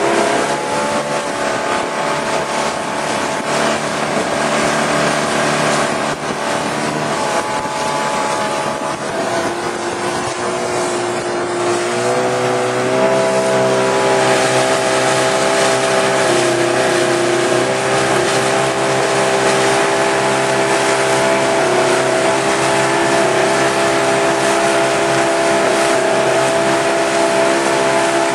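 Outboard motor of a motor launch running steadily, its engine note stepping up a little before halfway as it speeds up, over a steady rushing noise.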